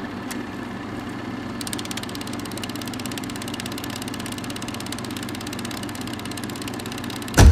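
A vehicle engine running steadily at idle, an even low hum.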